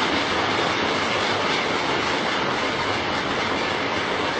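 Audience applause: many people clapping steadily in a dense, even roar of claps.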